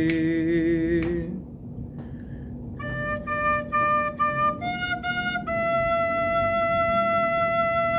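A man's sung note ends about a second in. Then a soprano recorder plays four short repeated D notes, one F, and a long held E.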